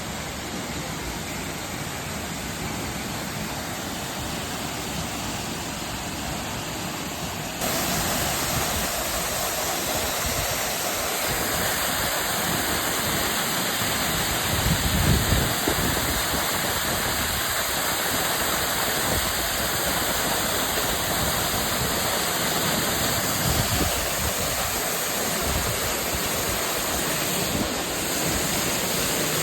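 Waterfall rushing as a steady, full hiss of falling water, stepping up abruptly in loudness about a quarter of the way in.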